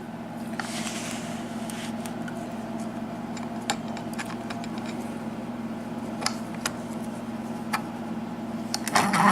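Faint scattered clicks and taps of a padlock and small metal lock-picking tools being handled, over a steady low hum, with louder handling near the end.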